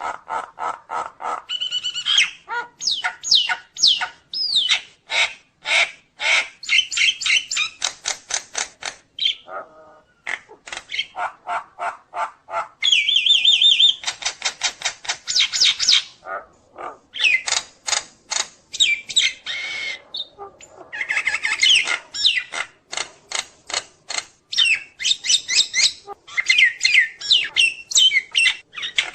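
A jalak nias myna singing a long, varied, fast song of harsh chattering notes packed with loud rising and falling whistles, the vigorous full song that bird-keepers call gacor.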